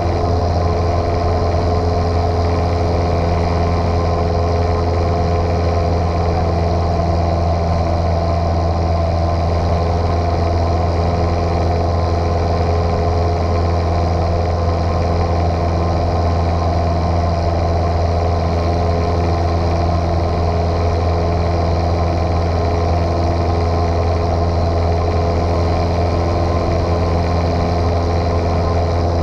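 Light aircraft's piston engine and propeller droning at steady power, with no change in pitch or level.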